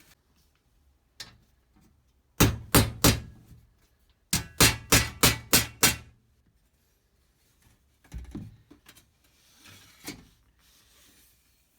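Hammer blows in bursts: three strikes, then a quick run of about six, each with a short ring, followed by a few lighter knocks.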